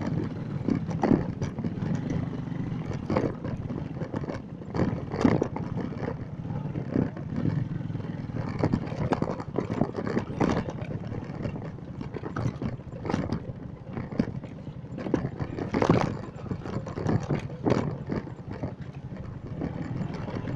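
Motorcycle engine running while riding over a rough, rocky off-road track, with frequent irregular clatters and knocks from the bike jolting over stones.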